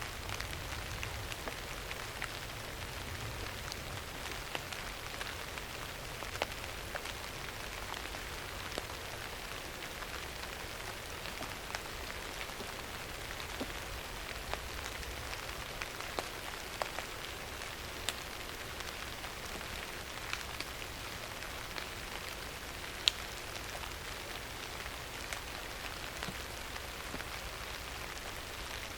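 Steady rain falling, with many individual drops ticking sharply on a hard surface over the even hiss; one drop near two-thirds of the way through is clearly louder.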